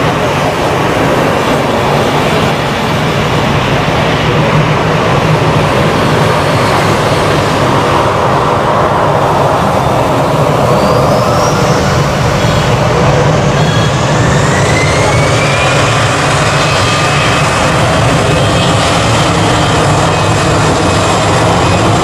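Airbus A320-214's CFM56 jet engines running as the airliner taxis onto the runway. From about halfway in a rising whine builds and then holds as the engines spool up for the take-off roll.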